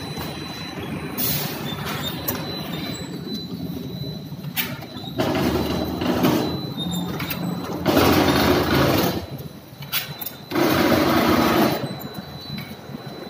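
Automatic rotary bottle-capping machine running with a steady mechanical hum and a faint high whine. From about five seconds in, a louder, noisier stretch lasting about a second and a half comes back roughly every two and a half seconds as the machine cycles.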